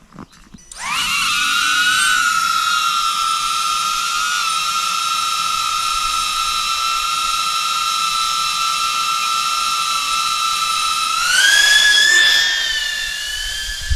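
DJI Avata FPV drone's motors and ducted propellers spinning up with a quickly rising whine about a second in, then holding a steady high whine. Near the end the pitch climbs to a higher level as the throttle is raised.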